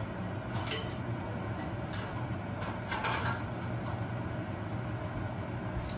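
Steady low hum from the kitchen cooktop setup while oil heats, not yet sizzling, in a frying pan. A few faint clicks and a brief rustle about three seconds in.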